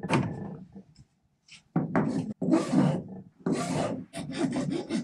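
A hand tool scraping and filing along the edge of a white plastic panel in repeated rasping strokes. The strokes start about two seconds in and settle into a quick, even run of about five or six a second near the end.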